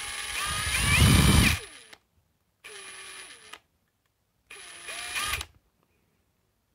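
Parkside Performance PDSSAP 20-LI A1 brushless impact driver spinning with no load under its variable-speed trigger. Its motor whine climbs in pitch as the trigger is squeezed and stops about two seconds in. It then makes two shorter runs, a quieter slow one and a last one that rises again, with no hammering.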